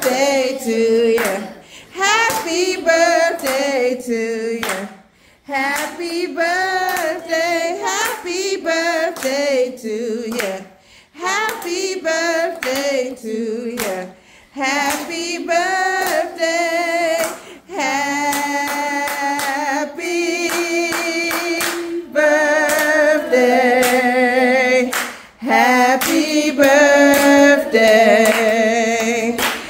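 Voices singing a melody with hands clapping along.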